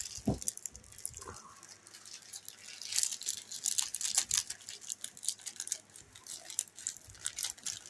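Plastic candy packaging crinkling and crackling with quick, irregular rustles as a package of Peeps is worked open one-handed.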